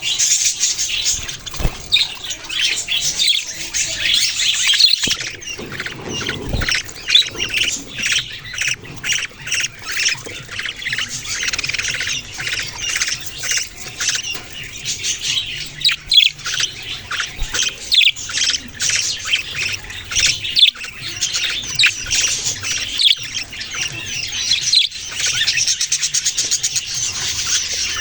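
Several budgerigars chirping and squawking at once in a continuous, busy chatter of short, high calls.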